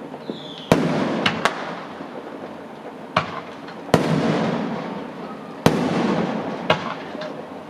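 Aerial fireworks going off: a string of sharp bangs at irregular intervals, about eight in all, the biggest each followed by a rumbling tail that fades over a second or two. A brief falling whistle comes just before the first bang.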